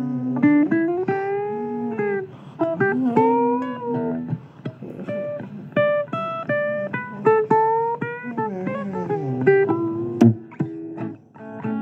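Instrumental guitar break in a blues song: single plucked notes, several bent so the pitch glides up and down, with a sharp click about ten seconds in.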